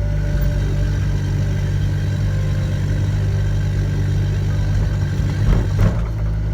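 Volvo ECR88 compact excavator's diesel engine running steadily, with two short clunks close together about five and a half seconds in.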